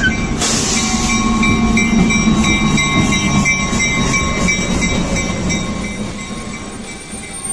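EMD SW1504 switcher locomotive with its 12-cylinder two-stroke EMD 645E engine passing close by, then freight cars rolling past on the rails, with a thin high whine running through it. It gets gradually quieter over the last couple of seconds.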